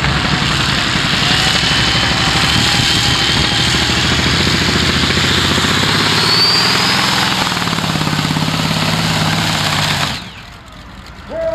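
Modified pulling tractor's engine running at full power while it drags the weight sled. A thin whine rises in pitch about six seconds in, and the engine noise cuts off abruptly just after ten seconds as the pull ends.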